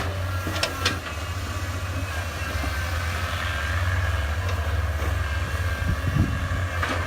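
Heavy diesel earth-moving machinery running steadily, with a high thin whine over the low engine drone and a couple of sharp metallic clanks about a second in.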